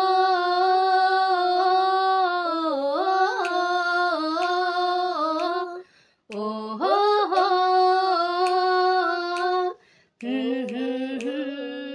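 A woman, with a boy joining in, singing long held wordless notes unaccompanied, in three phrases with short breaks between them.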